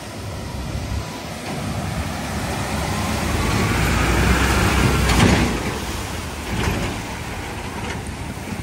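Diesel engine of a flatbed recovery truck driving through a flooded ford, with water surging and splashing around its wheels. It grows louder as it passes close, loudest about four to five seconds in, then fades as it moves away.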